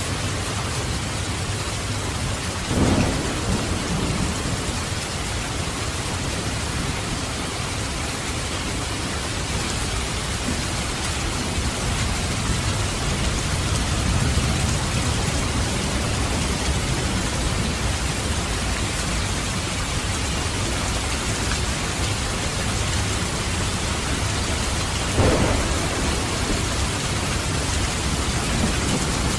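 Steady, heavy rain with thunder: two short, sharp claps of thunder, about three seconds in and near the end, with low rumbling in the middle.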